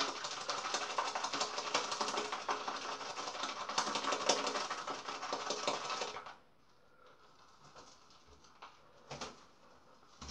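Shaving brush worked around a lathering bowl, whipping up thick shaving-soap lather: a dense run of quick, wet crackling strokes that stops about six seconds in, then a few faint clicks.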